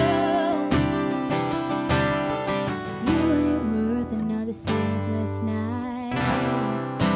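Live acoustic country-pop song: two acoustic guitars strummed in a steady rhythm under a woman's singing voice, which holds a note with vibrato near the start.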